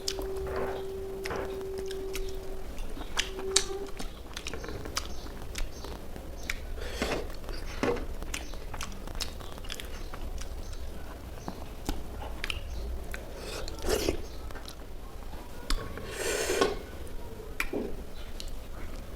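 A person biting and chewing chicken, with irregular crunches and mouth clicks.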